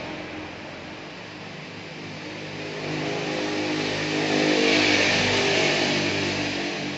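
A motor vehicle passing by: its engine and road noise grow louder over a couple of seconds, peak, then fade away.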